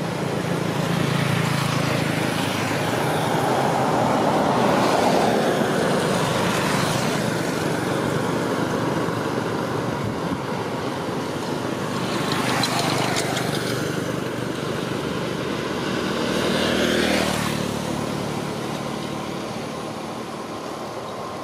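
Road traffic: motor vehicles passing, engine and road noise swelling and fading several times.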